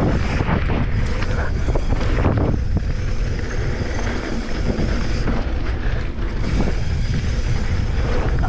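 Wind buffeting the microphone as a mountain bike rolls fast down a dry dirt trail, with a steady low rumble from the tyres on the dirt. Some rattling clatter from the bike over rough ground in the first couple of seconds.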